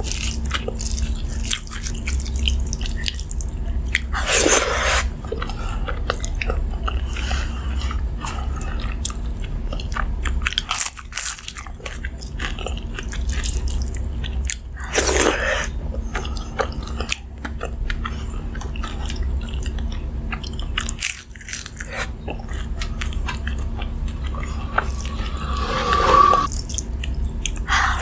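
Close-miked eating: steady chewing of a hand-eaten meal with crisp fried sides, with louder crunchy bites about four seconds in, midway, and near the end.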